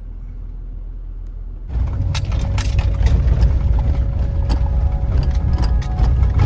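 Toyota Tundra pickup driving off-road: a steady low hum, then from about two seconds in a louder engine and tyre rumble full of knocks and rattles as the truck moves over rough ground.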